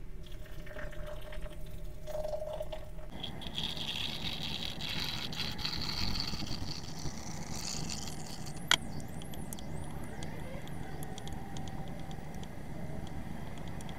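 Hot water poured from a glass kettle into a glass French press of ground coffee, a hiss that rises in pitch as the press fills for about five seconds. Then one sharp knock as the kettle is set down on the counter, followed by light tapping as the grounds are stirred with a wooden stick.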